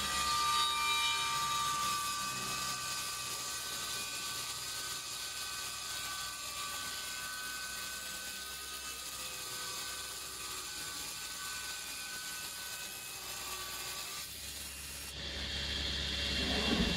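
Table saw winding down after being switched off, a steady whine fading slowly while timber is shifted on the saw table. The saw motor starts again about fourteen seconds in and runs on with a steady hum.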